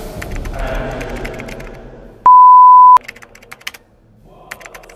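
One loud, steady electronic beep, a single pitch held for under a second, about halfway through. After it come scattered keyboard-typing clicks.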